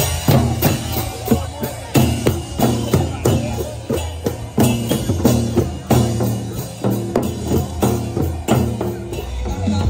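Upbeat festive dance music carried by a steady drum beat, with hand drums struck along and a continuous low bass.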